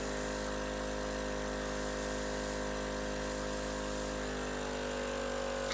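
Tracheostomy suction machine's pump motor running with a steady hum, its pitch rising slightly about four and a half seconds in.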